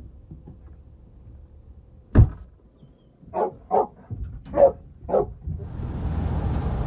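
A sharp thump about two seconds in, then a dog barks four times in quick succession, each bark short. Near the end a steady rushing noise comes up.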